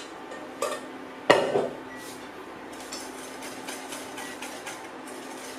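Wire whisk clinking against a stainless steel mixing bowl as warm lemon syrup is whisked into eggs beaten with sugar, the start of a lemon curd. There is a sharp metal clank about a second in, then a run of quick, light whisk strokes against the bowl.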